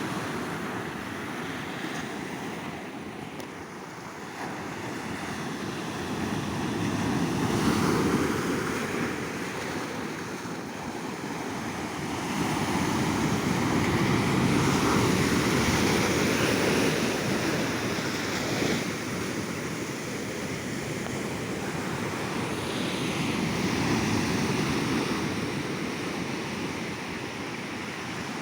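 Ocean surf breaking on a beach: a continuous wash of waves that swells and falls back every several seconds, with some wind.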